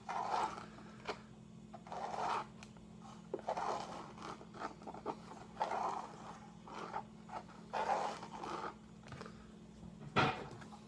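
A small scoop scraping and rustling in a small cardboard box of powder, in a string of short, irregular scrapes with a sharper, louder one near the end, as the rocket's powder is measured out.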